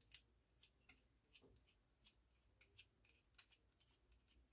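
Faint, irregular small clicks and ticks of a small screwdriver turning the cartridge mounting screws on a turntable headshell, with the screws being loosened to remove the old cartridge.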